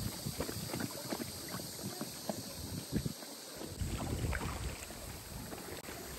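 Water lapping with small irregular splashes, and wind buffeting the microphone in gusts from about halfway through.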